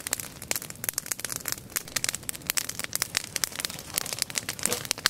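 Campfire of branches and twigs burning, crackling with many quick, irregular pops and snaps.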